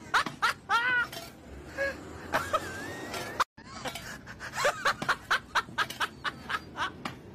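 People laughing and snickering in quick short bursts, broken off briefly about halfway through.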